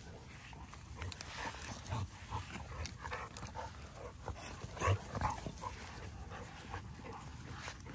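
XL bully dogs and puppies play-fighting: scuffling with short, scattered dog vocal sounds, the loudest a little before five seconds in.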